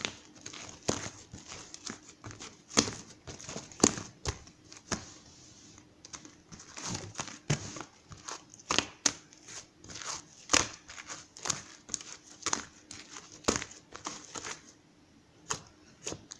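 Handling noise: irregular crinkling rustles and sharp clicks, as of something being handled or crumpled. It thins to a few isolated clicks about a second and a half before the end.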